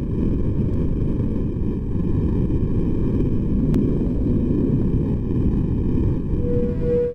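Loud, steady low rumbling noise from an intro sound effect, with a single click partway through and a brief tone just before it cuts off suddenly.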